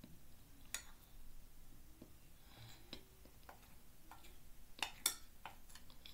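Faint scattered clicks and ticks, with a quick run of louder ones about five seconds in, from a glass measuring cup of cornstarch being handled and eaten from.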